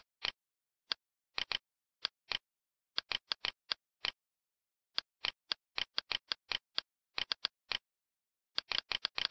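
Computer mouse clicking: short, sharp clicks at irregular intervals, sometimes a quick run of several in a row.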